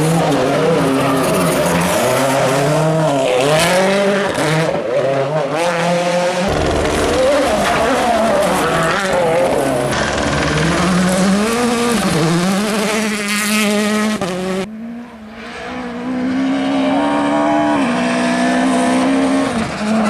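Rally cars driven flat out on special stages: their engines rev high and drop back again and again through gear changes and lifts, with tyre squeal and skidding in the corners. Near the middle the engine sound falls away briefly, then another car is heard revving hard again.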